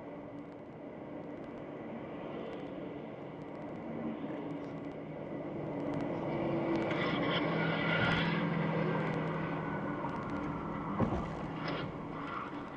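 Car driving on the highway, heard from inside the cabin: steady tyre and road noise with a low engine hum, swelling louder for a few seconds in the middle. A single sharp knock sounds near the end.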